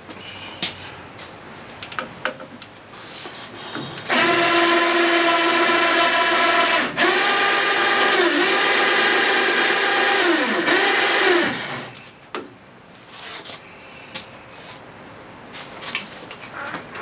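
A small electric motor starts abruptly about four seconds in and runs with a steady whine for about seven seconds. Its pitch dips briefly twice, then it winds down and stops. Scattered knocks and clatter of shop work come before and after it.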